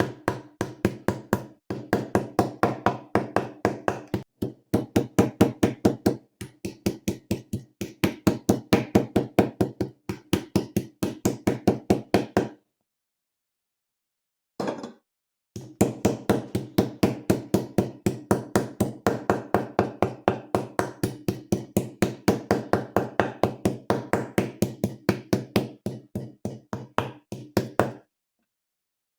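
Fast, even knocking, about five strokes a second, with a low ring to each stroke. It comes in runs of several seconds with short breaks and stops shortly before the end.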